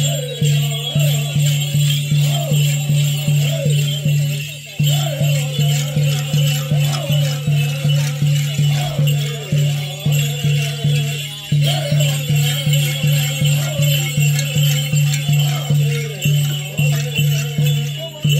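A Native American dance song: a steady drum beat at about two and a half beats a second under chanted singing. Bells and rattles jingle along with it. The drum stops briefly twice and then picks up again.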